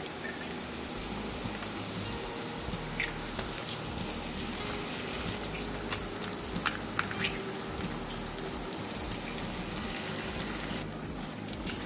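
Oil sizzling steadily in a kadai of frying potato, peanuts and onion as two raw eggs are cracked in, with a few sharp clicks and crackles around the middle.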